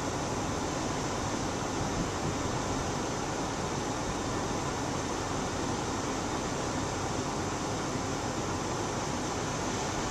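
Steady, even rushing noise of small surf washing onto a beach, with breeze flutter on the microphone.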